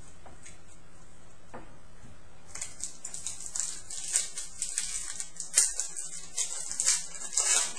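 Trading cards and crinkly pack wrappers rustling while being handled, in irregular crisp bursts that begin about two and a half seconds in. Before that there is only a steady low hum.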